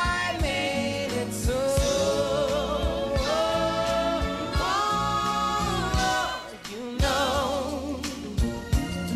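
Live soul-gospel band music: a male singer holds long, wavering notes over keyboard, bass and drums, with a brief drop in level about six and a half seconds in.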